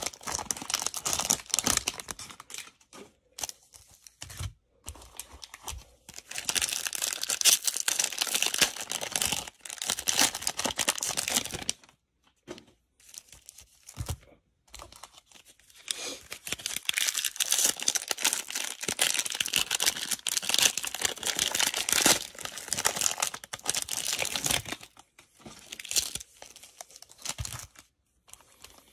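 Plastic wrappers of Panini Prizm basketball cello packs being torn open and crinkled, several packs in turn. The rustling comes in bursts with short pauses between them.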